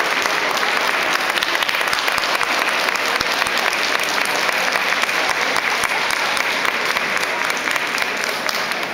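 Audience applauding: many hands clapping in a dense, steady patter that tapers off near the end.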